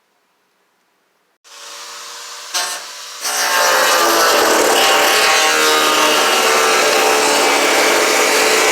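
Angle grinder working the car's sheet-metal body: it starts about a second and a half in, running lighter, then grinds loud and steady from about three seconds in.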